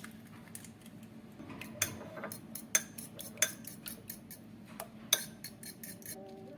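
Cutlery and dishes clinking: an irregular run of sharp taps and clinks, a few of them louder, as food is handled at a table or counter.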